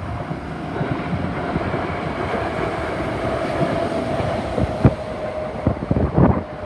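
A Sanyo Electric Railway 3050-series electric train passing close by over a level crossing, its wheels rumbling steadily on the rails. A few sharp clacks from the wheels crossing rail joints come near the end.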